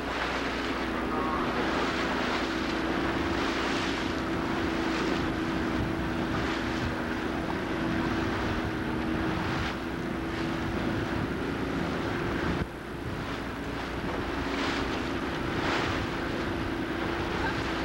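A motorboat engine runs with a steady drone, under a rushing haze of wind on the microphone and water along the hull.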